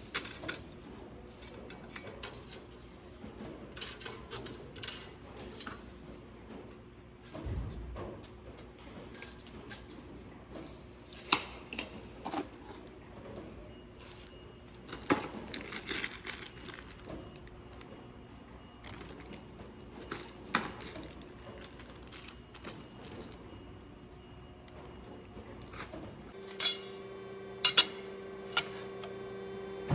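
Scattered light clinks and taps of small metal pieces being handled. A steady hum starts near the end.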